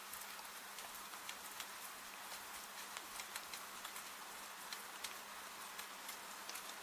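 Rain and a crackling fireplace: a steady, soft hiss with frequent sharp, irregular clicks and pops.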